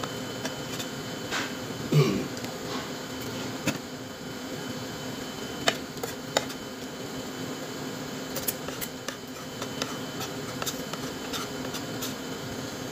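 Metal fork and spoon clinking and scraping against a ceramic dinner plate while eating, a few sharp clicks scattered through, over the steady hum of a wall-mounted split air conditioner. A brief louder noise about two seconds in.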